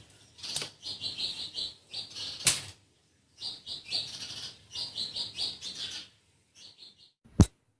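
A spoon scraping round a pot in quick rhythmic strokes while ragi porridge (ambali) is stirred continuously over the heat, in two long spells, with a sharp knock near the end.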